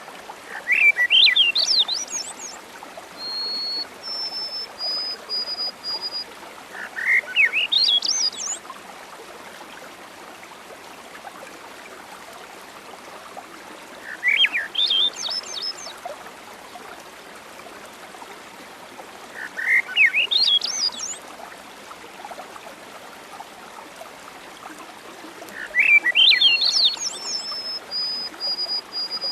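A songbird sings a short burst of quick notes that rise in pitch, five times about six seconds apart; the first and last bursts run into a few steady high whistled notes. Beneath them is the steady hiss of rain.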